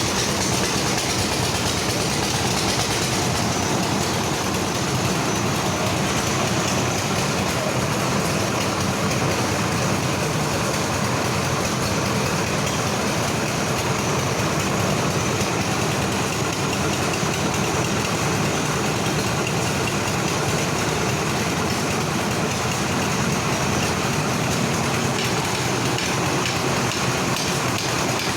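Steady, unbroken mechanical running noise, like an engine or motor idling.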